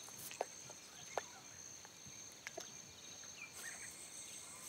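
Faint bush ambience: insects chirring steadily at a high pitch, with a few soft ticks and a brief chirp near the end.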